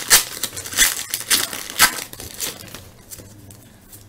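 A baseball card pack's wrapper being torn open and crinkled, a quick run of sharp rustles that is loudest in the first two seconds and then fades to softer handling.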